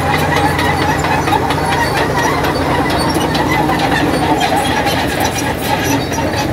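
Caterpillar D6H crawler bulldozer at close range: its diesel engine runs with a steady low drone under a constant clatter of the steel tracks as it crawls past.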